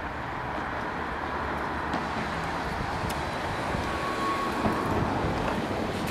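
Slow-moving freight train with a heavy-load car rolling along curving track: a steady rumble of wheels on rail, with a few faint clicks and a brief faint squeal about four seconds in.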